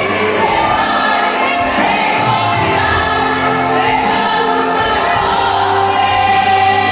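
Group of women singing a Christian song together, with long held notes.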